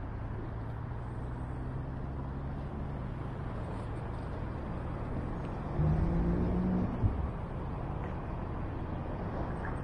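Road traffic: a steady wash of noise with a low engine hum. About six seconds in, a motor vehicle passes close and louder for about a second, followed by a brief sharp knock.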